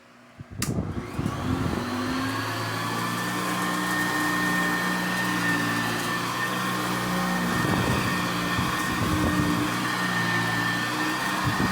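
Hoover Convertible U4423 upright vacuum cleaner, fitted with a faster motor and a 12-blade metal fan, switched on with a click about half a second in. The motor spins up within a second or so and then runs steadily at full speed with a strong high tone.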